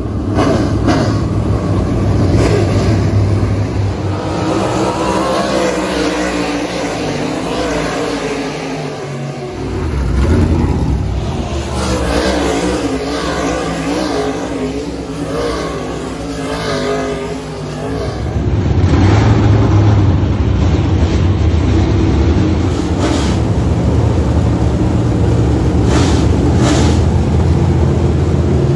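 Dirt-track race cars' engines running hard through the turns of the dirt oval, the pitch rising and falling as they rev and lift. About two-thirds through this gives way to a steadier, heavy low rumble of many race car engines running together.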